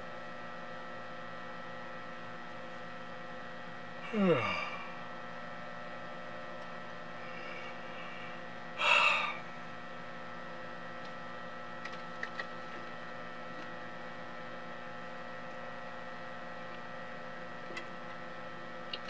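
A steady electrical hum of several fixed tones. Over it, a man gives a sigh that falls in pitch about four seconds in, and a short breathy exhale or gasp about nine seconds in.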